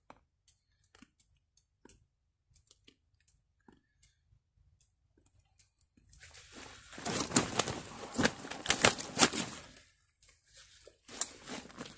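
Scattered small clicks, then about four seconds of loud rustling and crackling close to the microphone, then a single sharp click near the end.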